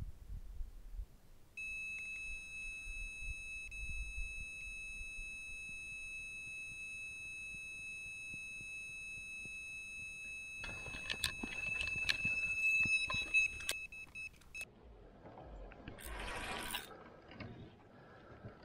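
Electronic carp bite alarm sounding a continuous high-pitched tone as line is pulled off the reel during a run. The tone cuts off about three-quarters of the way through, after a few seconds of clicks and rustling over it.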